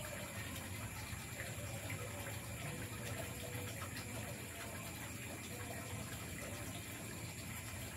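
Steady night-time forest ambience: an even, unbroken hiss with high steady tones, with no distinct events.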